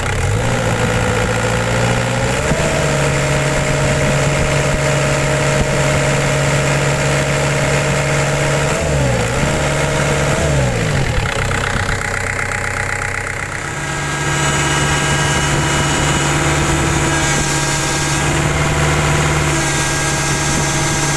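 Diesel engine of a Caterpillar 305.5E2 mini excavator running with its idle freshly reset to normal. Its speed is raised by hand at the injection pump lever and held steady, dips and recovers twice about halfway through, then settles back to a steady lower idle about two-thirds of the way in.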